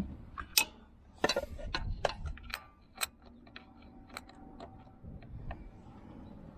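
Irregular sharp clicks and light metallic clinks, a dozen or so, thinning out over the last seconds: hand tools and parts being handled while reaching under a tractor for the oil drain plug.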